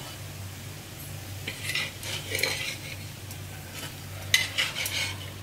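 Steel spatula scraping across an iron tawa as it slides under shallow-fried colocasia patties to lift them off, in two bouts: one about a second and a half in, the other near the end.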